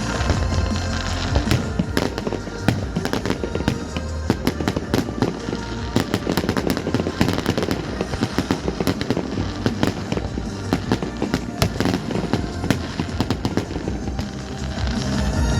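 Fireworks display: a dense, rapid run of bangs and crackling bursts over music playing.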